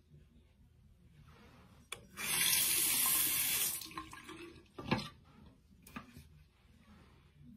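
Bathroom sink tap turned on about two seconds in, running for about a second and a half, then shut off. A sharp knock follows a little later.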